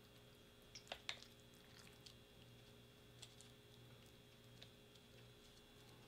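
Near silence over a faint steady hum, broken by a few light clicks and taps, the loudest pair about a second in: a plastic fork scraping and tapping in a foil ration tray while loading food onto a piece of crispbread.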